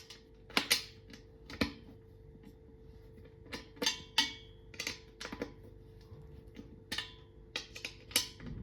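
Scattered sharp clicks and knocks, a dozen or so at uneven spacing, as of hard objects being handled or fitted together during assembly, over a faint steady hum.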